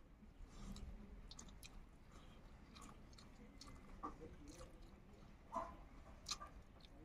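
Faint sounds of people eating by hand: chewing, and fingers working rice and curry in steel plates and bowls, with a few soft clicks.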